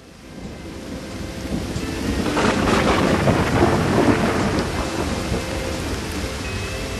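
Thunderstorm: steady rain with a long roll of thunder that swells in from quiet, is loudest about three to four seconds in, then settles back into the rain.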